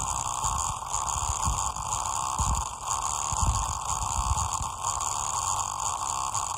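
A broken loudspeaker driven hard, its cone moving heavily and giving out a distorted hum and static with irregular low bass pulses.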